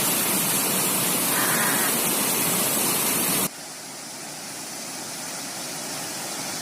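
Waterfall rushing, a steady wash of water noise that drops suddenly to a quieter, duller level a little past halfway.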